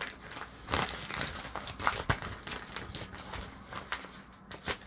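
Brown-paper mailing bag crinkling and rustling as it is handled and turned over, in a run of irregular crackles.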